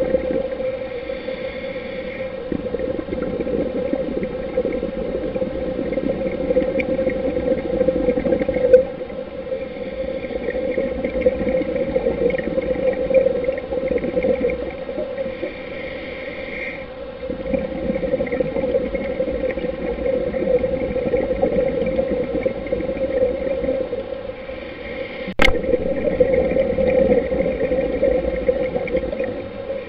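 Underwater sound picked up through a dive camera's housing: a steady droning hum with a muffled rush of scuba exhaust bubbles swelling and fading every few seconds. One sharp click about 25 seconds in.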